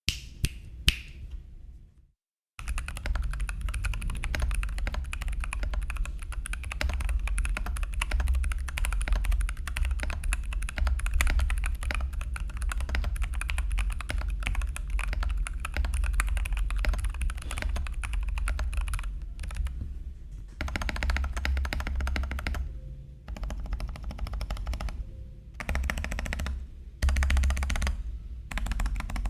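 Typing on a budget computer keyboard. A couple of key presses, a brief pause, then a long run of fast typing with a deep thud under each keystroke, breaking into shorter bursts with pauses near the end.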